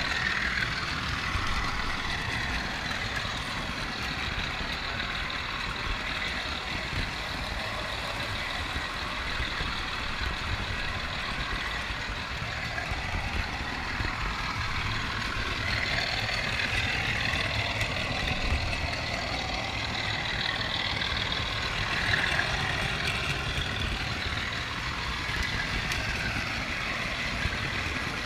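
Model train running along its track, heard from on board one of its wagons: a steady rumble and clatter of wheels on the rails, with a high whine that rises and falls.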